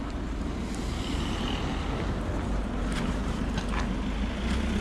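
A car engine running close by, mixed with wind buffeting the microphone.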